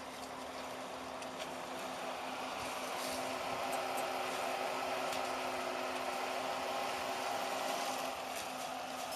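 A steady low mechanical hum under a rushing noise that swells from about two seconds in and eases near the end.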